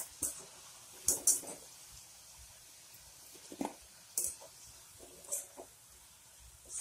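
Faint hiss of hot frying oil in a kadai, broken by several short, sharp scrapes and rustles as crisp fried potato pieces are lifted out with a wire spider strainer and tipped onto a tissue-lined plate.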